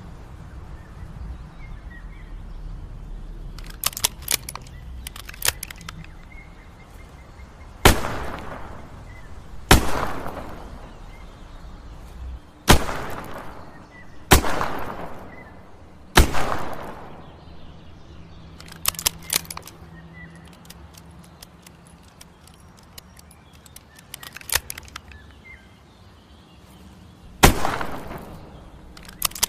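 Smith & Wesson M360J revolver firing six single shots, each a sharp report with a ringing echo. Five come one to three seconds apart, then a long pause before the last. Lighter clicks from the gun's action come before and between the shots.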